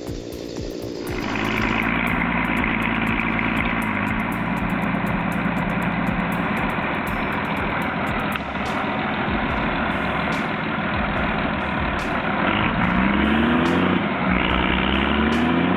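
Tractor's diesel engine running hard under load, its pitch climbing a couple of times near the end as the revs rise.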